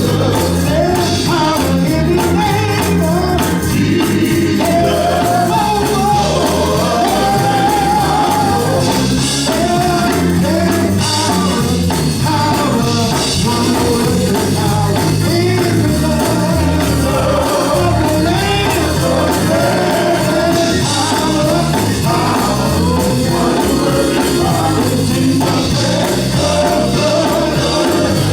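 Gospel music with singing, a band with a steady beat and tambourine.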